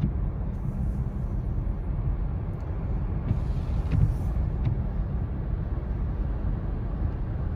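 Steady low rumble of a car driving slowly on a wet road, heard from inside the cabin: engine and tyre noise on the rain-slicked pavement.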